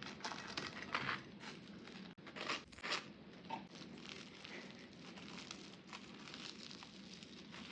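Crinkling, rustling kitchen handling noises in irregular short bursts, the loudest about one, two and a half, and three seconds in, with a brief sudden dropout just after two seconds.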